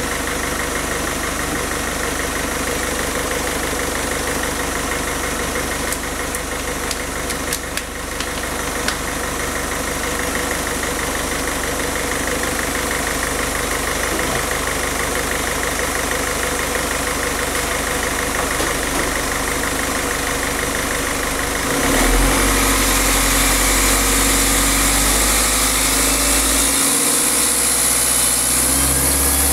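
Peugeot 407 1.6 HDi diesel engine idling steadily while it runs on injector cleaner fed straight into its fuel circuit from a bottle; the owner feels it starting to run smoother. About two-thirds of the way through, the sound steps up and gets a little louder, with more hiss and a heavier low end.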